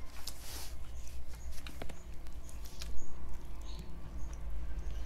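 Close-miked mukbang eating sounds: chewing and wet lip smacks, with many small sticky clicks as roasted chicken is pulled apart and eaten by hand. A short hissing burst comes about half a second in.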